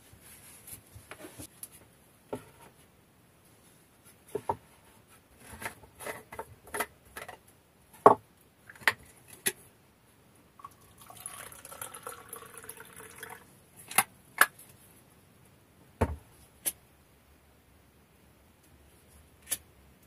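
A drink poured from a thermos flask into a cup for about two to three seconds, midway through. Around it come sharp clicks and knocks as the flask, its lid and the cup are handled on a wooden plank table.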